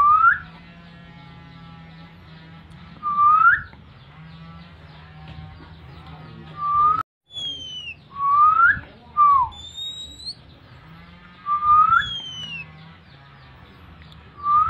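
Loud, short rising whistles repeated every two to three seconds, one falling instead near the middle, over fainter background chirps. This is a whistled lure call used to set off oriental magpie-robins (kacer) in breeding condition.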